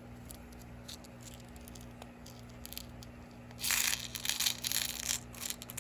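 Plastic packaging crinkling in hand, in a dense run of crackles from a little past halfway, after a few light clicks.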